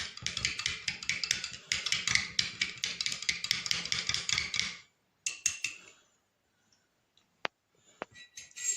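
A spoon clinking rapidly against a glass while stirring ground cloves and milk into lukewarm water, many quick clinks a second. The stirring stops about five seconds in, leaving a few single clicks.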